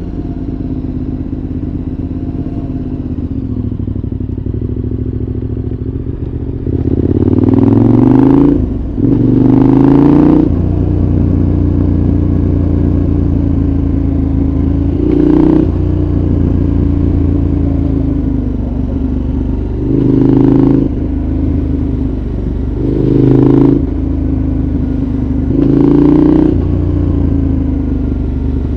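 A 2014 KTM 1190 Adventure's 75° V-twin, through a Giannelli exhaust with its dB killer fitted, heard from onboard. It runs steadily for several seconds, then climbs in pitch through two accelerations about seven and nine seconds in. After that it gives a string of short, louder throttle bursts every few seconds.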